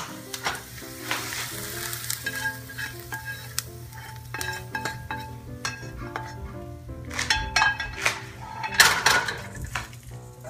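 A spoon scraping and clinking against a stainless steel skillet as cooked onions are scraped out into a saucepan of potatoes, with a louder scrape about nine seconds in. Background music with a melody of held notes plays throughout.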